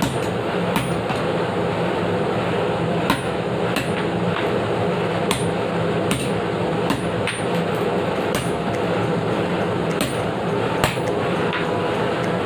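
Hammer blows on metal at a forge, sharp ringing strikes landing irregularly about once every one to two seconds, over a steady mechanical hum.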